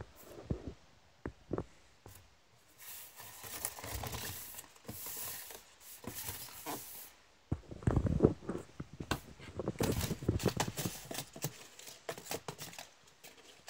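Crumpled paper balls rustling and tumbling inside a cardboard box, with a cat's paws scraping and batting at the cardboard. The knocking and scraping grow louder and busier about halfway through.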